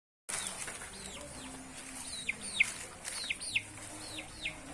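Chicken peeping: short high calls that slide down in pitch, mostly in pairs, about one pair a second.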